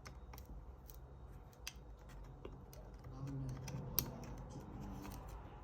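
Faint, irregular small clicks and taps of hands and tools working inside an opened laptop, with one sharper click about four seconds in.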